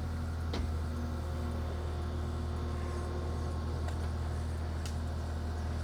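Skid steer engine running at a steady speed, powering the hydraulic jib boom that lifts a roof truss, with a few faint clicks.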